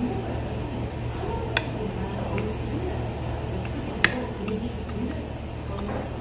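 A few sharp clicks, the loudest about four seconds in, from metal chopsticks against each other and the plate while eating, over a steady low hum.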